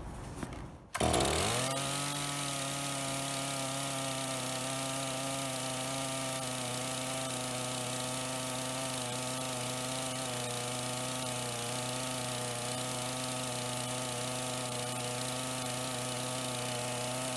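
Stihl MS 461 two-stroke chainsaw pull-started at half choke, catching about a second in, then running steadily at half choke.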